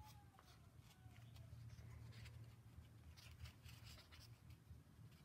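Near silence: a faint room hum with soft, scattered rustles and scratches of string being handled on a pool-table cloth.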